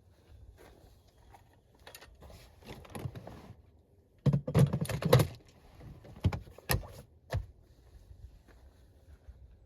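Objects being handled: a run of clicks and clattering, loudest in a dense burst about halfway through, followed by three sharp separate knocks.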